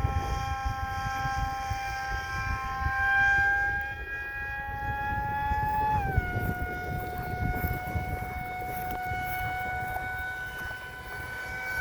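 Electric pusher motor and propeller of a 3D-printed RC F-22 model in flight, a steady high whine that drops a step about six seconds in as the throttle is eased back, then holds. Wind rumbles on the microphone underneath.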